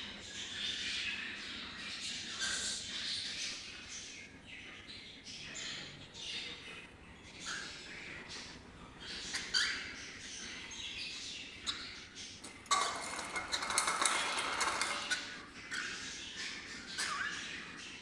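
Small pet parrots chattering with short, sharp squawks and chirps, growing louder and denser for a couple of seconds past the middle.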